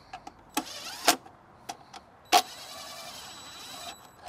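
DeWalt cordless drill/driver running in short bursts as it drives screws into the hub on top of a metal AC disconnect box: a brief run about half a second in, then a longer run of about a second and a half. Sharp clicks come between and at the start of the runs, the loudest just as the longer run begins.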